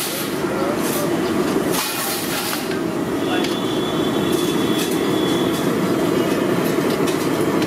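Potato fritters deep-frying in a large iron kadai of hot oil: a steady, dense sizzle and crackle.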